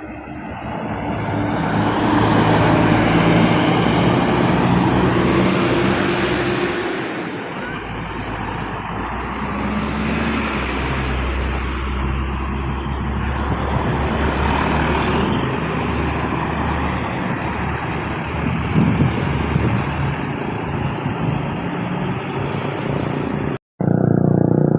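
Diesel buses and traffic passing on a road: heavy engine rumble and tyre noise that swell over the first two seconds as a vehicle comes close, then stay loud. It is cut by a brief dropout near the end.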